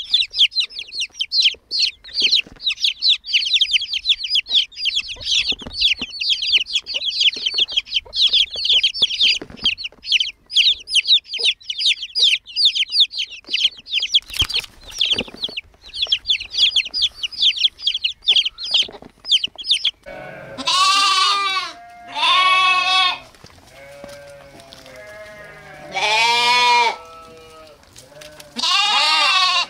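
A group of baby chicks peeping nonstop, many high chirps a second, for about twenty seconds. Then lambs bleat, four loud calls with fainter ones in between.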